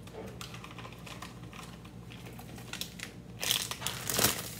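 Plastic bags being handled: faint ticks and rustles, then louder crinkling about three and a half seconds in as a plastic snack pouch is picked up.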